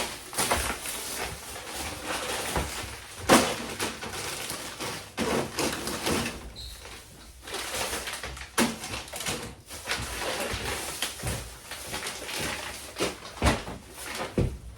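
Groceries being handled and put away in a refrigerator: packaging rustling, with frequent knocks and bumps of items against shelves and doors, the sharpest knock about three seconds in.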